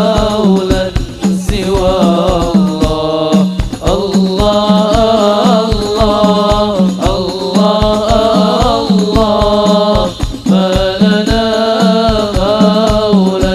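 A sholawat sung by male voices over hadrah frame drums (rebana) beating a steady rhythm.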